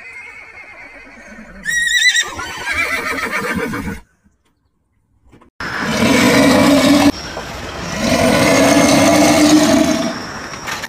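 Animal calls: a wavering high-pitched call that falls in pitch, then after a short silence two long, loud calls.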